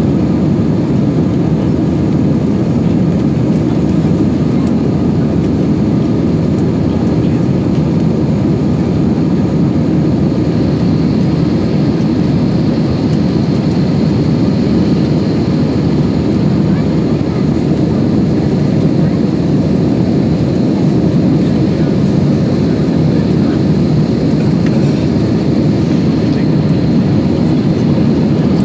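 Cabin noise of an Airbus A320-family airliner climbing after takeoff, heard at a window seat over the wing: a steady, deep rush of engine and airflow. A faint high whine comes in about ten seconds in and holds.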